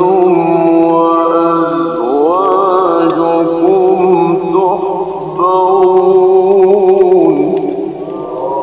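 Qur'anic recitation in melodic tajweed style: a man's voice holds long drawn-out notes, rising in a wavering, ornamented glide about two seconds in and dropping in pitch near the end as the phrase closes.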